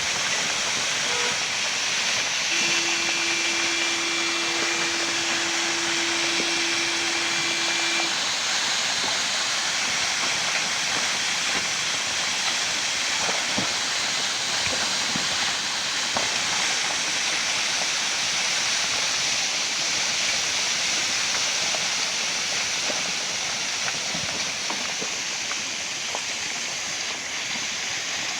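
Steady rushing of rainwater and muddy runoff, an even hiss. From about 2.5 s to 8 s a single steady tone sounds over it.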